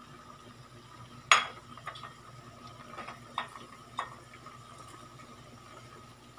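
Sharp metallic clinks in a pot of mussels on the stove: one loud clink about a second in, then three lighter ones over the next three seconds, over a faint steady hum.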